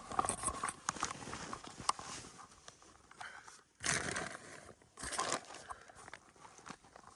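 Snowshoe footsteps crunching in snow, irregular, with the loudest crunches about four and five seconds in.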